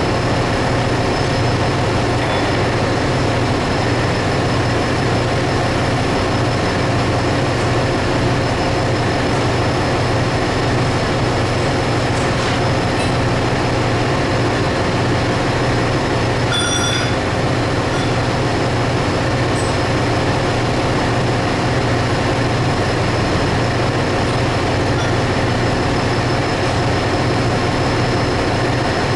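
Steady loud drone of ship engine-room machinery, an even hum that does not change. About two-thirds of the way through there is one short ringing clink.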